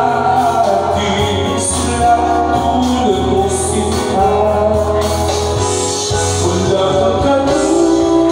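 A singer singing into a handheld microphone over amplified backing music, with long held notes over a steady bass line.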